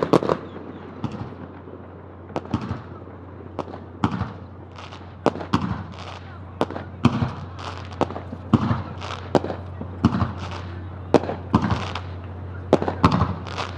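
Aerial firework shells bursting in an irregular series of sharp bangs, each trailing off briefly, coming thickest near the start and again near the end.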